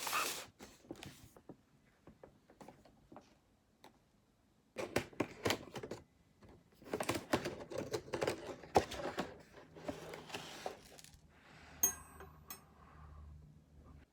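Irregular clicks and clatter of small hard objects being handled in a small room, coming in busy clusters with pauses, and a brief high tone near the end.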